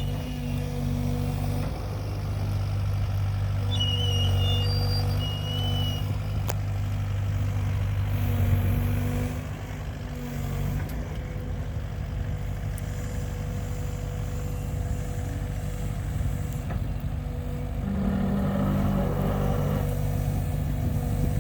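Excavator engine running steadily as the machine is worked, heavier and louder for several seconds near the start, with a brief high whine partway through and a shift in tone near the end.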